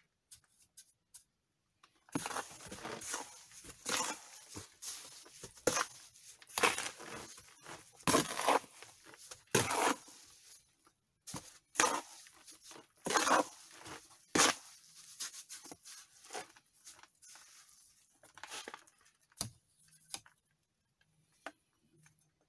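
Steel brick trowel scraping and spreading mortar against old bricks, in a run of irregular rasping strokes with a few sharp clicks.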